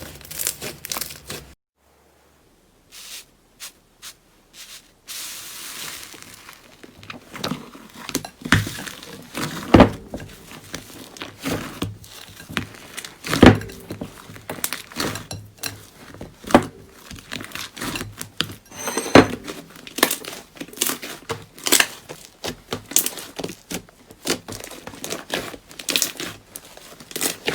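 Slime being squeezed and stretched by hand, giving dense crinkling and crackling with many sharp pops. The sound drops out briefly about two seconds in.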